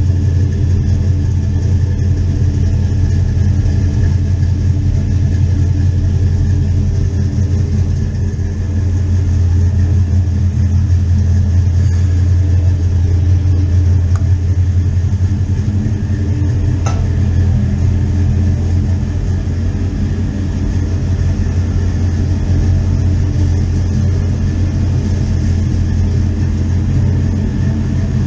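A vehicle engine idling steadily with a deep, even low rumble.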